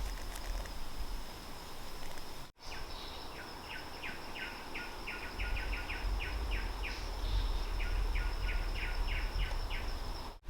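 Forest ambience: a steady high-pitched insect drone, with runs of quick repeated chirps, several a second, from a bird or insect, over a low rumble of wind on the microphone.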